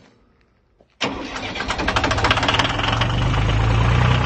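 Compact tractor's engine, just rebuilt with new piston rings and rod bearings, starting on its first try after the rebuild: it fires about a second in, catches at once and runs on to a steady idle, growing a little louder as it comes up to speed.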